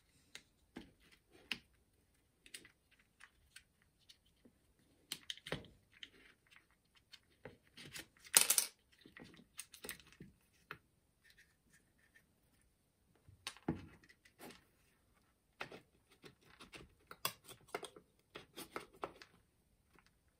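Plastic clicks, scrapes and rustles of a Makita DF001G drill-driver's motor, circuit board and wiring being worked loose from its plastic housing half. There is a louder half-second scrape about eight seconds in, a sharp knock near the middle, and a run of small clicks near the end.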